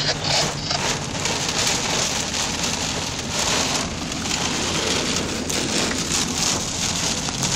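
Heavy rain drumming steadily on the car's roof and windshield, heard from inside the cabin while driving through a thunderstorm's downpour.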